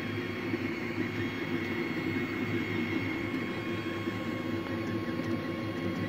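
Tevo Tornado 3D printer running a print: its stepper motors whir in a steady, fluttering run as the print head and bed move, over the steady whine of its cooling fans.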